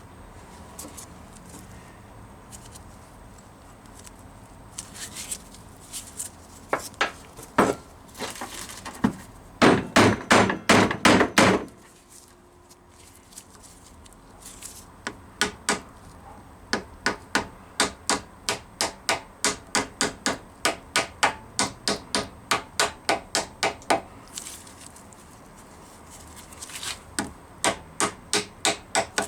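Hammer tapping a new differential oil seal into its housing, driving it in through the old seal used as a drift. The taps come in bursts: a few single taps, a quick flurry about ten seconds in, then a long steady run of about two taps a second, and more near the end.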